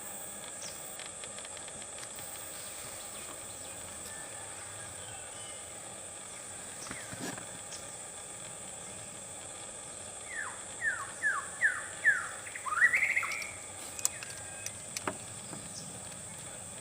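Outdoor natural ambience with a steady high insect drone. A bird calls a quick run of about six short falling notes, then one rising note, a little past the middle.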